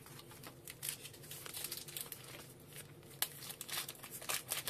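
Pokémon Lost Origin booster pack's foil wrapper crinkling and tearing open by hand, a run of short crackles and rustles that grows busier toward the end as the cards come out.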